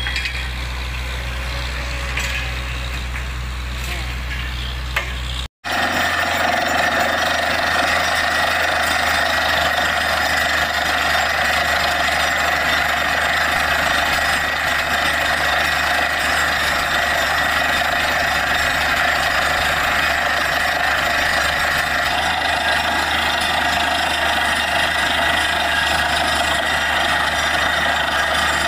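A borewell drilling rig's engine runs steadily with a low hum. After a sudden cut about five seconds in, louder, even machine noise from the rig at work takes over.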